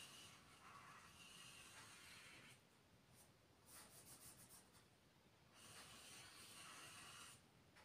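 Faint rubbing of a marker on a whiteboard as curved lines are drawn, in a few long strokes separated by short pauses, with a run of quick short strokes around three seconds in.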